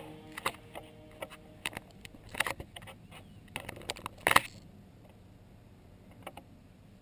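Irregular metallic clinks and rattles of a steel chain being handled, the loudest clatter about four seconds in.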